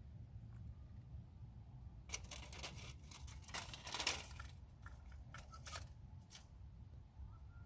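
Rustling and crinkling in short bursts, loudest about four seconds in, over a faint low rumble.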